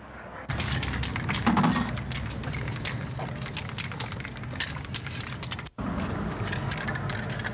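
Aerosol spray-paint cans hissing, with crackling clicks over a steady low hum and one louder burst about a second and a half in. The sound cuts out for an instant after about six seconds.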